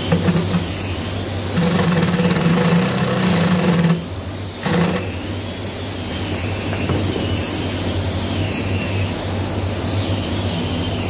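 Cordless Makita drill running in short steady bursts while driving screws through a wooden drawer front into a metal bar handle: a brief run at the start, a longer one of about two and a half seconds, and a short blip around five seconds in, over a steady low background hum.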